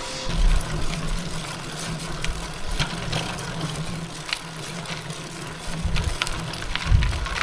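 Road bike riding noise on a climb: an uneven rumble of wind on the microphone, with scattered light clicks from the bike and the road.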